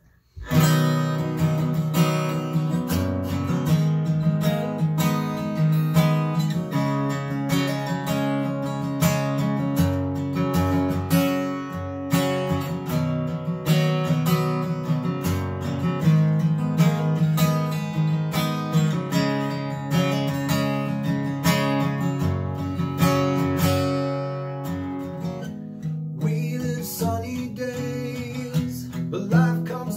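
Steel-string acoustic guitar strummed in a steady rhythm, playing a song's opening chords. It starts about half a second in and grows softer and sparser near the end.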